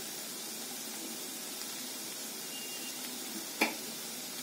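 Potato masala sizzling gently in a nonstick frying pan, a steady soft hiss. A single sharp click about three and a half seconds in.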